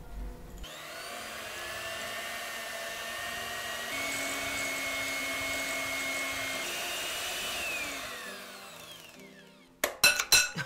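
Electric hand mixer beating butter batter in a glass bowl: the motor whine starts about a second in, steps up in pitch twice, then winds down as it is switched off. Near the end come a few sharp metallic clicks as the whisk beaters are pulled out of the mixer.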